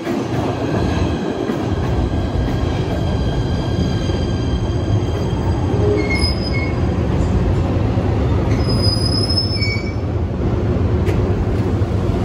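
PATH PA5 subway train running on the rails: a steady rumble of wheels and motors with thin high wheel squeals, sharper for a moment about six seconds in and again around nine to ten seconds.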